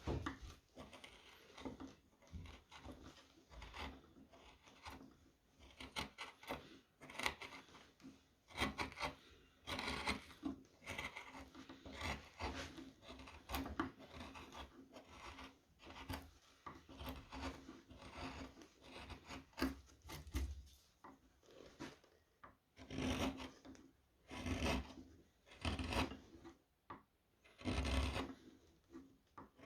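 Round carving gouges paring wood from a wooden spoon: a long run of short, irregular scraping cuts, with a few louder strokes about a second apart near the end.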